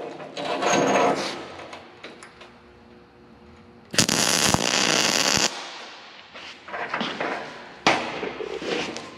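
MIG welder laying a tack weld on a nut set on a 3/8-inch steel disc: a loud, even crackle lasting about a second and a half, starting about four seconds in. Around it, lighter knocks and clatter from steel parts being handled on the steel welding table, with a sharp knock near the end.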